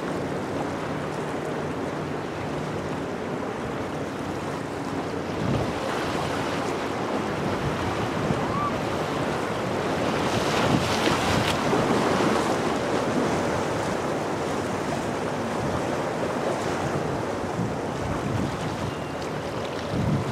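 Ocean surf washing against shoreline rocks, with wind buffeting the microphone; the wash swells loudest about halfway through.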